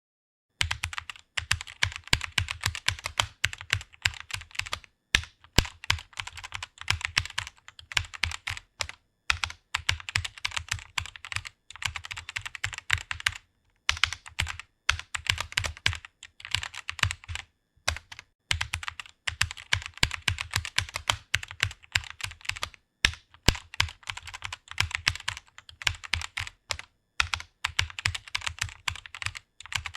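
Fast typing on a computer keyboard: a rapid run of key clicks, broken by short pauses every few seconds.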